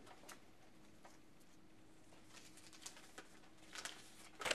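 Quiet room tone with a faint steady hum and a few soft clicks; near the end, loud crinkling of a folded paper note being handled and unfolded.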